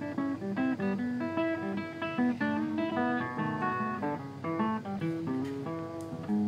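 Background music: plucked acoustic guitar playing a busy run of short, quick notes.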